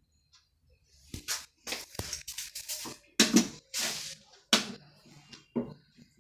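Straight razor scraping over lathered facial skin in a quick series of short strokes, a touch-up second pass of a face shave.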